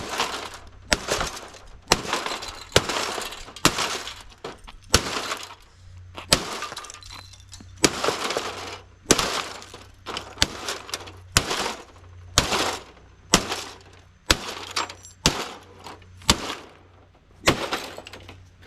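LG smart TV being smashed with repeated hard blows, about one a second at an uneven pace, each hit cracking and breaking its glass and panel with a brief clatter after it.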